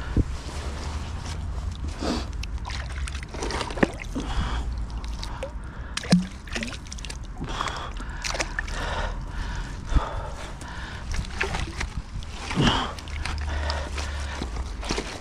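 Heavy mud-caked metal ingots being pulled out of canal water by hand: water sloshing and gurgling and wet mud shifting, with a few sharp knocks of metal, and heavy breathing from the effort.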